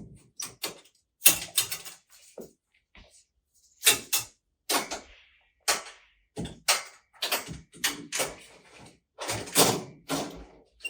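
Handling noise: a dozen or so short knocks and scrapes at irregular intervals, with quiet gaps between them.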